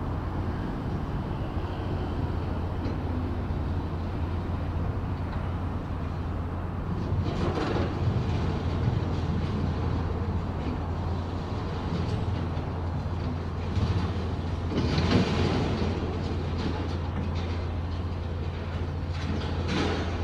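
Demolition-site machinery: a steady low diesel drone of heavy plant running. Three louder rushes of clattering noise come through it, about a third of the way in, again after the middle, and at the very end.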